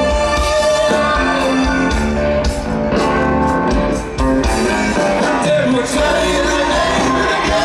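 Live rock band playing at full volume, with a voice singing over guitar, bass and drums, recorded from the audience.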